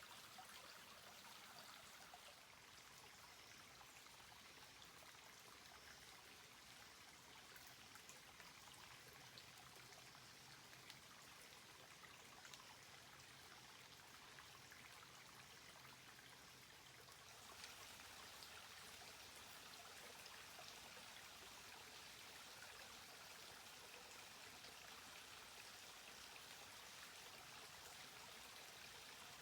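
Running water of a woodland stream, a steady rush. About two-thirds of the way through it becomes louder and brighter, as a different stretch of water takes over.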